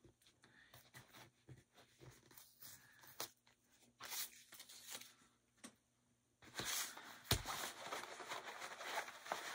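Paper wrapping and stiff printed fabric panels rustling and crinkling as a taped roll of bag-kit pieces is unwrapped and unrolled by hand: soft and intermittent at first, louder and continuous in the last three seconds, with one sharp tap in that louder stretch.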